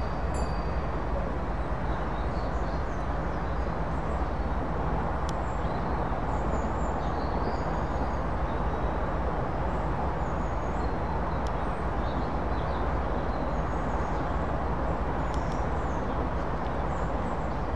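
Stationary diesel locomotives idling, a steady low engine hum, with faint bird chirps above it.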